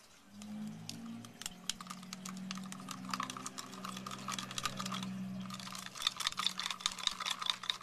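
Quick, irregular light clicks and taps of small plastic parts being handled: the cup, spoon and injector of a children's candy-making toy kit, over a low steady hum. The clicking grows denser near the end.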